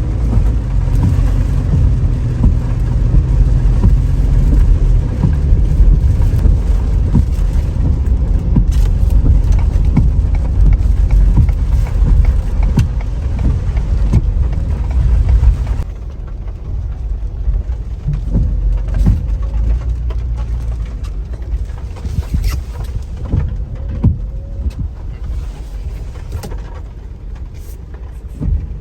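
A car driving, with a steady heavy low road rumble. It turns quieter and duller about halfway through.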